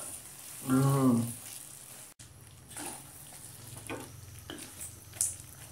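Wooden spatula stirring fried keria doughnuts through thick, bubbling palm-sugar syrup in a wok, with soft scattered scrapes and sticky sizzling as the syrup thickens into a glaze. A short voiced sound rings out about a second in.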